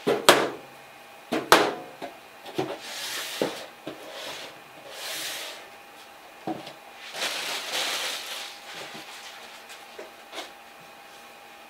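Handling noises on a wooden workbench: a few sharp knocks as items are set down, then cardboard boxes rustling and scraping as they are picked up and moved, with a couple of light taps near the end.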